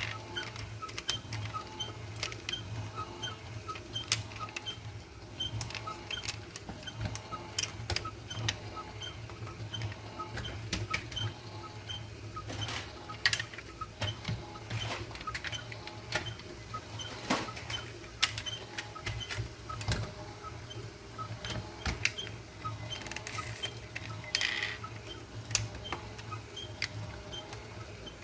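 Small clicks and taps of toy cars being handled, scattered irregularly, over a faint regular ticking and a steady low hum.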